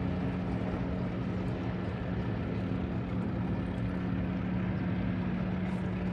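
Outboard motors of several bass boats running at low speed on the water, a steady engine drone.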